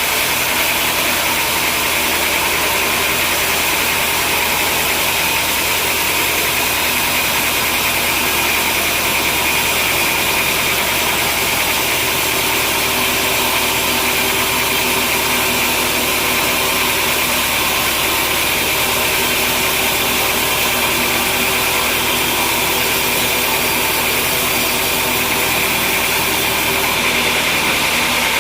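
Sawmill machinery running steadily, a constant loud mechanical noise with a steady high whine over a low hum.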